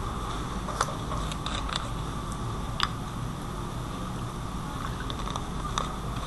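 Room tone: a steady background hum and hiss, broken by several short sharp clicks, the clearest a little under a second in and near three seconds.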